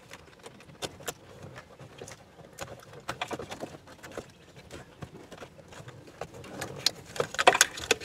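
Plastic wiring-harness connectors being worked loose and unplugged by hand behind a dashboard panel: scattered small clicks and rattles, busier and louder near the end.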